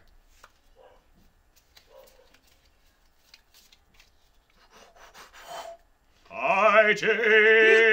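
Faint clicks and rustles of trading cards and foil booster packs being handled. About six seconds in, a voice breaks in with a loud, drawn-out, wavering sung call.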